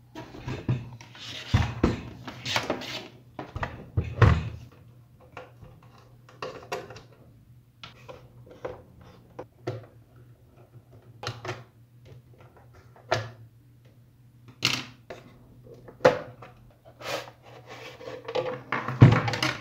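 Handling sounds of a plastic-cased bench power supply being taken apart: scattered clicks, knocks and thuds as its knob and parts come off and the case is lifted away from the chassis.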